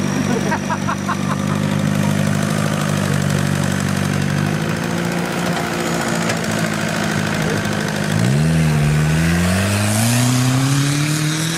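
Homemade off-road buggy's Volkswagen Golf 1.6 turbo-diesel engine running steadily, then revving up in two rising sweeps from about eight seconds in as the buggy accelerates across loose dirt.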